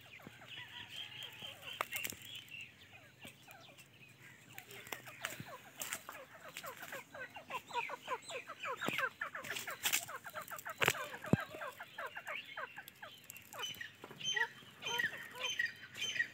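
Young teetar partridge chicks chirping and peeping in many short calls, with a dense run of rapid chirps around the middle and a few sharp clicks.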